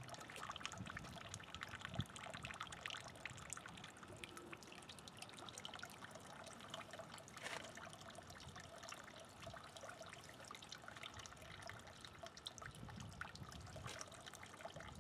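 Faint, steady trickle of water from a slow flow driven by a small submersible pump through a copper coil, the rubber hose pinched down to keep the flow slow.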